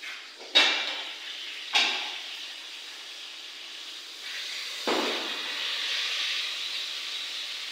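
Aluminium cookware clanking: a pot lid knocked twice against the pot, then another clank about five seconds in. From about four seconds in, a steady hiss of cooking from the pot on the gas stove.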